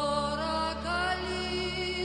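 Background music: long held notes, sliding a little in pitch, over a steady low drone.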